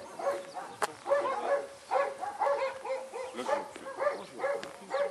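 Dog barking repeatedly, about two barks a second, with one sharp click about a second in.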